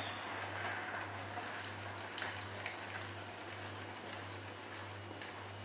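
Hand-cranked fruit and vegetable juicer crushing pineapple as its handle is turned: a faint, even grinding noise with a few small clicks.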